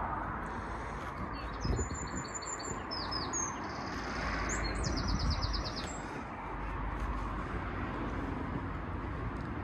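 A small songbird singing short chirps and a quick trill, over a steady low background noise.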